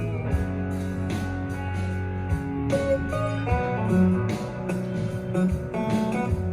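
A pop song with guitar and a steady beat, played back through a speaker dock for a sound test.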